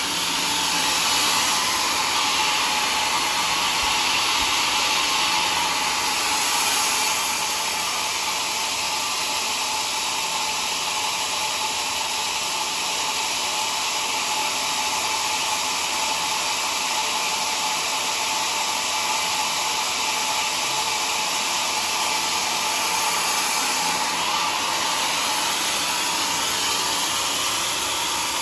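Homemade sawmill's saw running steadily, a loud even hissing whir with no breaks.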